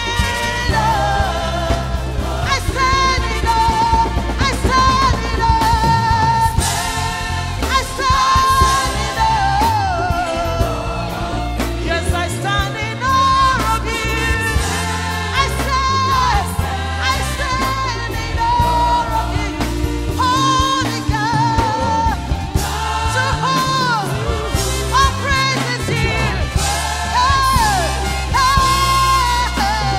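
Live gospel worship music: a woman lead singer with a choir, backed by electric guitar, keyboards and drums over a steady bass line.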